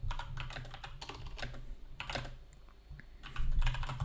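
Typing on a computer keyboard: a quick run of keystrokes in the first second and a half, then a few scattered key clicks, over a low steady hum. A low thud comes near the end.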